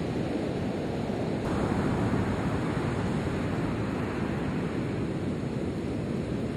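Ocean surf washing steadily onto a sandy beach, a continuous wash of breaking waves, with wind rumbling on the microphone.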